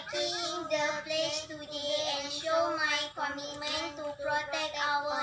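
Children's voices reciting together in unison in a chanting, sing-song voice.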